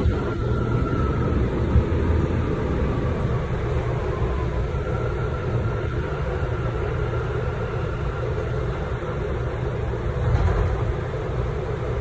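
A subway train running, heard from inside the car: a steady rumble of wheels on the rails, with a faint high tone coming and going.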